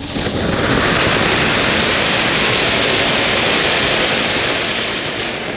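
Anar (flower-pot fountain firework) burning, a steady loud hiss as it sprays sparks upward. It builds within the first moment and slowly dies down near the end.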